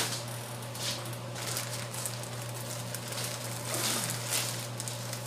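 Plastic packaging rustling and crinkling in short, repeated bursts as it is handled, over a steady low hum.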